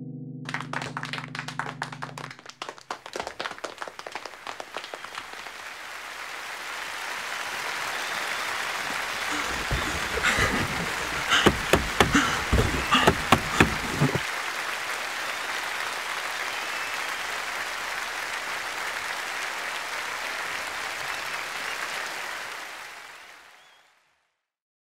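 Audience applause: scattered claps that swell into steady, dense clapping, with a run of louder claps in the middle, then fading away near the end. A piano chord dies out in the first two seconds.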